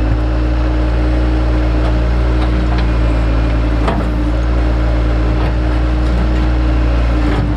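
Diesel engine of digging machinery running steadily at a constant speed, with a few scattered knocks as rock is moved.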